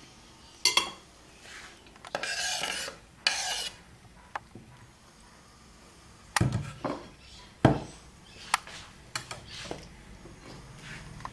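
Kitchen utensil clatter: two scraping rasps early on, as chopped tomatoes are scraped across a wooden cutting board, then a run of sharp clinks and knocks against a ceramic bowl in the second half.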